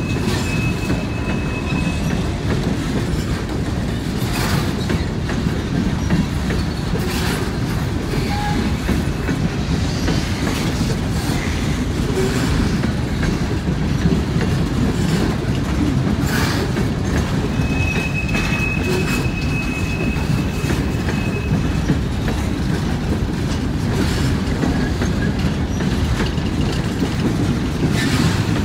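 A mixed-manifest freight train's cars rolling past with a steady heavy rumble, with a few sharp clacks from the wheels on the track. A steady high wheel squeal sounds briefly at the start and again for a few seconds about two-thirds of the way through.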